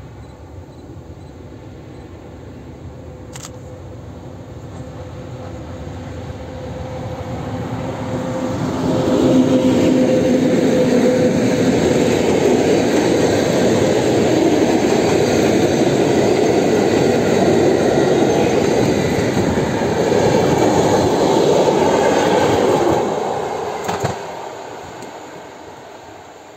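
A PKP Intercity passenger train of locomotive-hauled coaches approaches on the bridge and passes close by, its wheels rolling on the rails. The sound builds for several seconds, stays loud through the pass, and fades as the train draws away near the end. A humming tone comes as the locomotive goes by.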